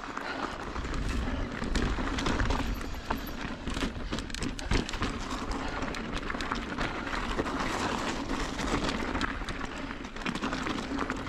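Mountain bike descending a rocky trail: tyres rolling and crunching over dirt and rock, with the bike rattling and many short knocks as it hits rocks, over a steady rumble of wind on the microphone.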